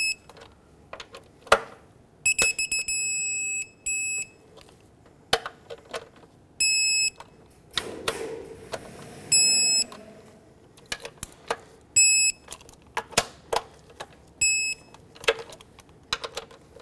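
Digital torque wrench beeping, eight short high beeps one to three seconds apart, one a little longer, as each intake bolt is brought to its 89 inch-pound setting, with sharp clicks between.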